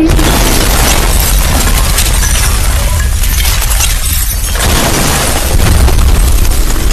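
Wind buffeting an open microphone on a boat on the water: a loud, steady low rumble with crackling hiss.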